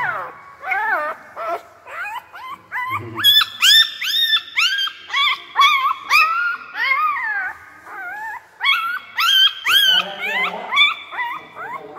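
Newborn puppy, eyes not yet open, whimpering and crying in a steady run of short, high-pitched squeals that rise and fall in pitch, two or three a second.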